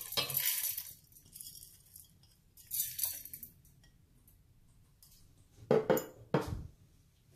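Whole dry spices (coriander, cumin and fennel seeds, peppercorns) poured and tapped out of a glass dish into a stainless steel mixer-grinder jar, rattling in the first second and again about three seconds in. Near the end come two sharp glass clinks, about half a second apart.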